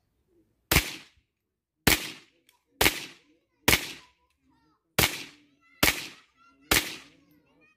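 Seven single shots from an AR-15-style semi-automatic rifle, fired one at a time about a second apart, each a sharp crack with a short tail, emptying the magazine.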